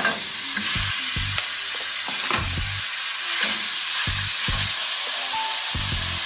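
Raw ground beef hitting a hot oiled frying pan and sizzling. The sizzle starts suddenly as the meat goes in and holds steady as it is stirred and broken up with a wooden spatula.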